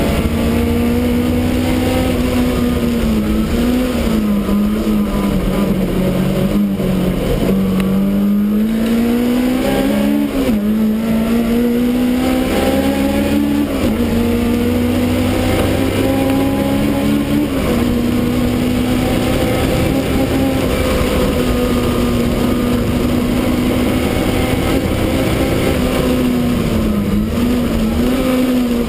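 Supercharged BMW E30 race car's engine heard from inside the stripped cabin, driven hard on track. Its pitch climbs steadily, then drops sharply several times as the driver works through the gears, over a constant rush of road and wind noise.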